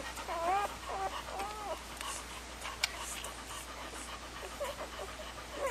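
Newborn golden retriever puppies squealing: a run of short, high cries that rise and fall in pitch in the first couple of seconds, then a faint one near the end. A single sharp click about three seconds in.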